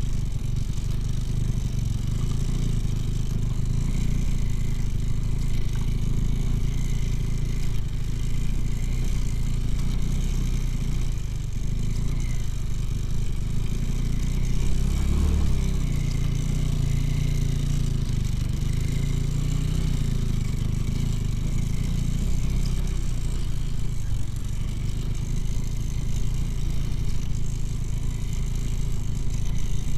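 Two-wheel-drive motorcycle's engine running steadily under load as it pushes through deep snow, swelling briefly about halfway through.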